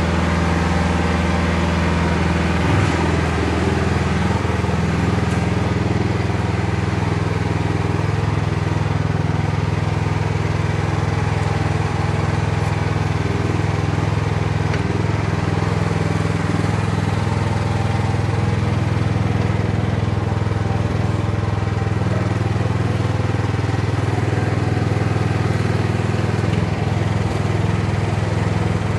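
Jansen MB 500 mini dumper's small gasoline engine running steadily as the machine is driven, a loud, even engine note.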